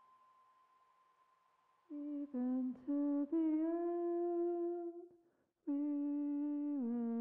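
Ambient music: a lingering sustained tone fades out, then about two seconds in a wordless, voice-like melody begins, held notes joined by short slides, with a brief pause about five seconds in and a step down in pitch near the end.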